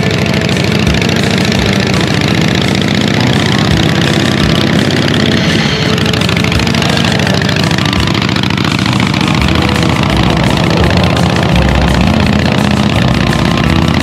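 Harley-Davidson Pan/Shovel V-twin engine of a 1960s custom chopper running loud and steady as the bike rides along, growing a little louder in the last few seconds.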